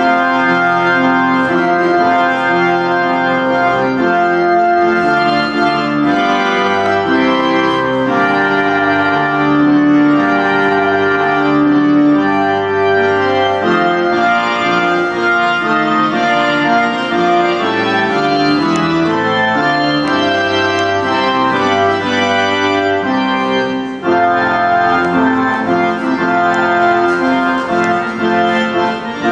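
Organ playing sustained chords and a slow-moving melody, the recessional music after the couple has been pronounced married.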